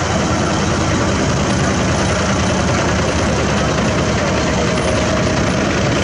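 A heavy dump truck's diesel engine idling close by, a steady, even engine noise that does not rise or fall.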